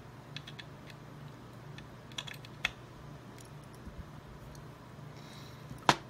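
Small screwdriver turning the tiny screws that hold a water block to a graphics card: scattered light metallic clicks and ticks, with one sharper click just before the end.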